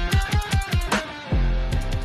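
Rock music with electric guitar over a fast, steady drum beat, with a sharp drop in level about a second and a half in.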